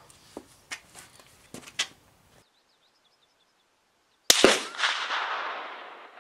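A few light clicks, then a single shot from a .308 M1A National Match rifle: a sharp double crack followed by a long echoing decay that dies away over about two seconds.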